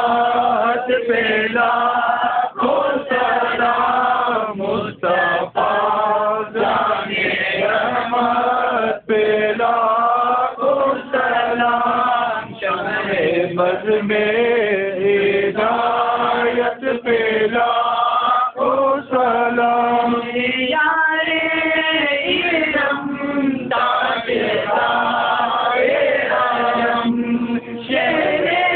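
Men's voices chanting an Urdu devotional salaam together in long sustained phrases, with short pauses between lines.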